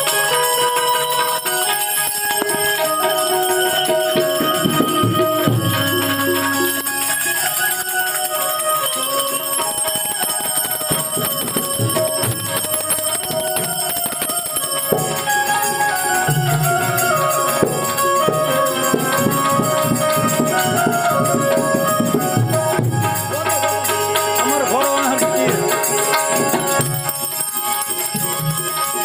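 Harmonium played as an instrumental introduction to a Gujarati devotional santvani song, with jingling percussion alongside.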